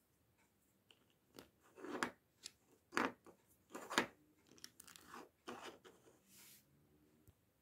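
Small LEGO plastic bricks being handled and pressed onto each other: a string of short clicks and snaps, loudest about two, three and four seconds in.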